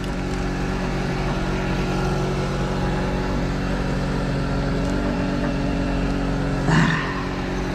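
A boat's engine running steadily at a constant speed, with a brief louder noise about seven seconds in.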